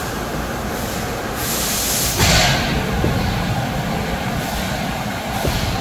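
Bystronic ByStar 4020 fiber laser cutting sheet metal: a steady low machine rumble with a hiss that surges and fades several times, loudest about two seconds in, as the head pierces and cuts the plate.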